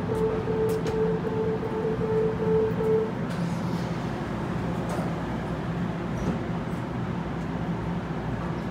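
Evenly pulsed warning beeps from an NJ Transit Multilevel coach, about eight short beeps in three seconds, the door-closing warning, over the train's steady low hum.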